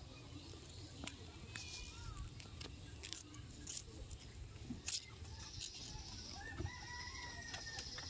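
A rooster crowing once, one long arched call in the second half. Scattered sharp clicks and knocks come throughout, the loudest near the middle.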